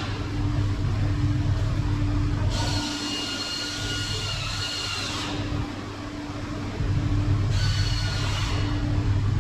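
A machine running with a steady low hum, joined twice by a high whine.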